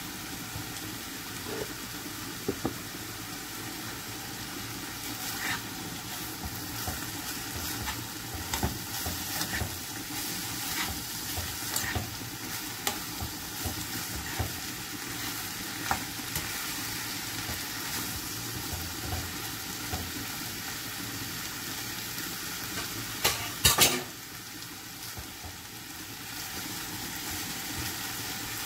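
Minced beef and mixed vegetables sizzling in a non-stick frying pan while being stirred, with scattered taps and scrapes of the utensil against the pan. There is a brief louder clatter a few seconds before the end.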